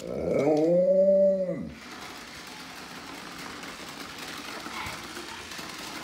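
Alaskan Malamute giving one howl of under two seconds that rises and then falls in pitch. It is followed by a steady whir from the child's Minnie Mouse toy vacuum running.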